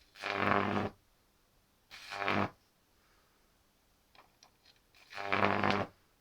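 Jacob's ladder powered by a microwave oven transformer at about 2 kV, arcing in three loud buzzing bursts of under a second each, with a few faint clicks between the second and third.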